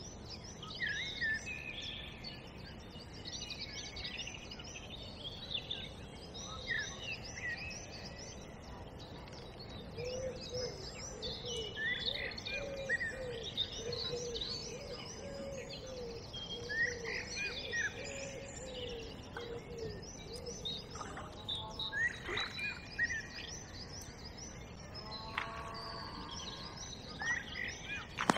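Songbirds singing, with many overlapping chirps and short song phrases. A lower call repeats in a steady series from about ten seconds in until about twenty seconds in.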